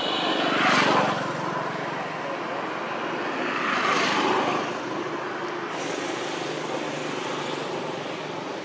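Road traffic: vehicles passing twice, swelling about a second in and again around four seconds, over a steady background rumble.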